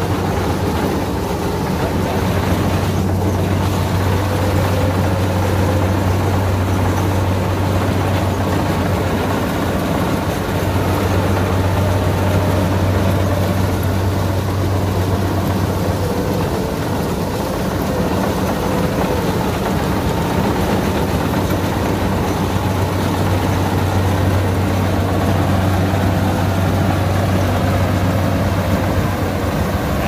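Kubota combine harvester's diesel engine running steadily with a low hum under load, its header and threshing gear working as it cuts lodged, waterlogged rice.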